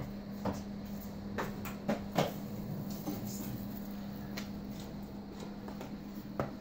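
Children's roller skates rolling on a concrete garage floor, with a handful of sharp clacks as the skates knock down and bump, over a steady low hum.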